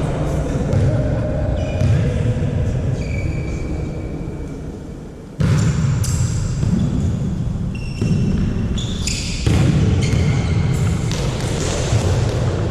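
Sports hall during a volleyball match: a steady noise of the hall and crowd, with sudden ball strikes and many short, high squeaks like shoes on the court.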